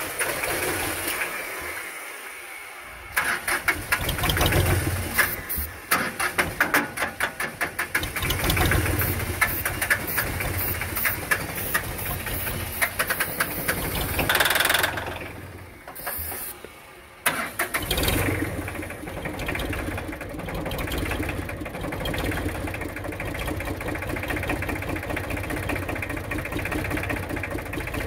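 Ford 1520 tractor's three-cylinder diesel engine being started after its injector lines were bled: it catches and sputters, firing unevenly with puffs of black smoke, nearly dies about fifteen seconds in, then picks up and settles into a steady idle.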